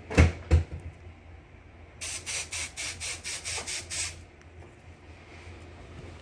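Fire alarm horn sounding briefly in rapid pulses, about four a second for some two seconds, during a walk test. It comes after two heavy thumps near the start.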